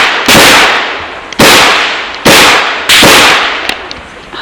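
Four loud revolver shots from a Chiappa Rhino .38 Special, a second or less apart, each ringing out in a long echoing decay.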